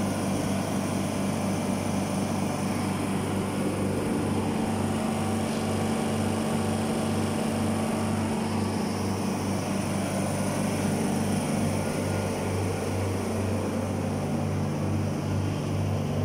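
Reciprocating refrigeration compressor of a York Millennium chiller running: a steady low mechanical hum that throbs about twice a second, with a hiss on top.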